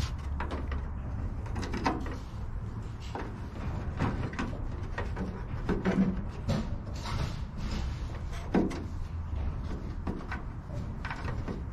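Hands working a cable into a gap in an aircraft's aluminium tail skin: scattered rustles, light scrapes and small knocks against the metal, over a low steady rumble.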